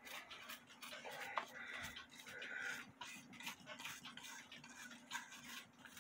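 Faint brushing: a small brush scrubbing oil into the carved wood of a cuckoo clock, a run of short, irregular scratchy strokes.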